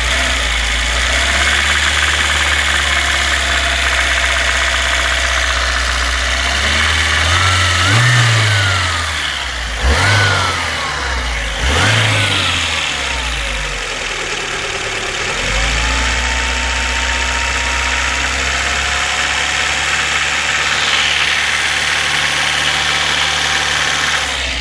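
VAZ-2115 petrol engine running, blipped up in revs three times about a third of the way in, then settling back to a steady speed. At 2000–2500 rpm it knocks like a diesel, an unexplained knock that appeared about 3000 km after a full rebuild with a new cylinder head.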